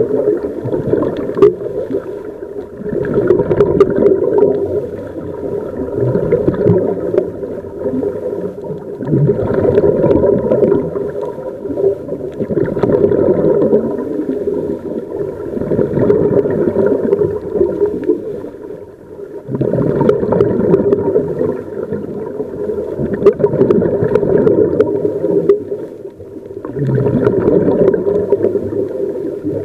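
Scuba regulator exhaust bubbles gurgling underwater, recorded underwater so they sound muffled. They come in loud surges every few seconds, one with each diver's exhalation, with short lulls between breaths.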